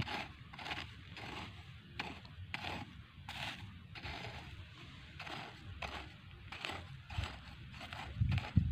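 Small hand hoe (wangkil) scraping and chopping through dry soil and weeds, in short repeated strokes about three every two seconds.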